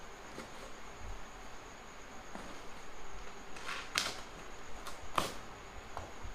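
Packing tape on a cardboard box being cut and pulled open, with quiet rustling and two short, sharp scraping rips about four and five seconds in.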